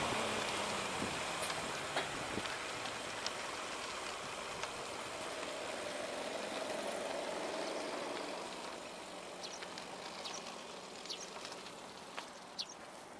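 Road traffic noise, trucks and cars passing close by, heard from a moving bicycle with wind rushing over the microphone; it eases off over the second half. A few light clicks come near the end.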